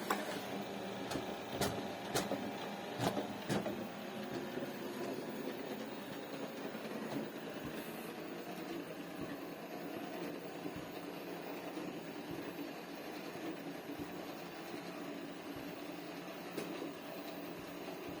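A small motor whirring steadily, with a few sharp clicks in the first four seconds.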